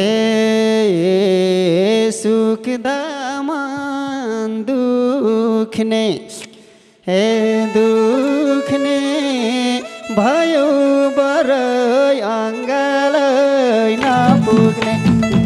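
A man's voice singing a Nepali dohori verse, each phrase bending in pitch over a steady held accompaniment note. He breaks off for about a second around six seconds in, then sings on, and the full band comes back in near the end.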